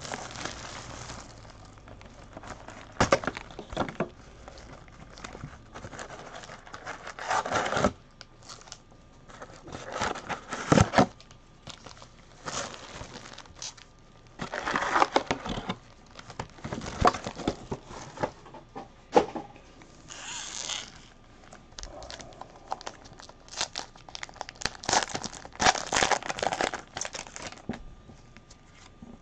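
Plastic wrapping on a box and packs of Donruss football trading cards being torn open and crinkled in irregular bursts, with the cards handled in between.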